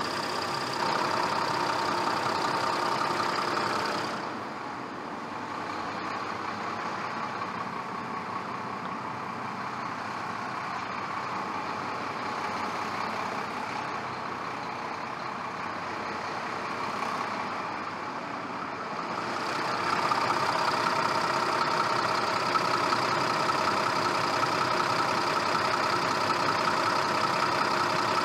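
Motor-vehicle engine running steadily, changing to a different, duller engine sound about four seconds in and back to a brighter one at about twenty seconds.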